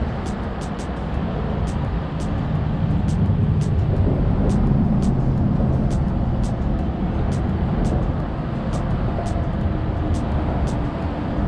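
Fishing reel giving quick, light, irregular clicks, a few a second, as a hooked fish is reeled in on a bent rod, over a steady low rumble that swells a little a few seconds in.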